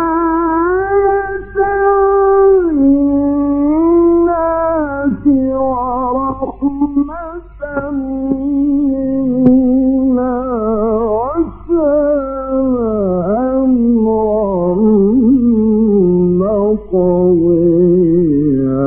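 A male Quran reciter chanting in the drawn-out mujawwad style, holding long notes and ornamenting them with quavering melodic turns. The voice is alone, over a steady low hum in the recording.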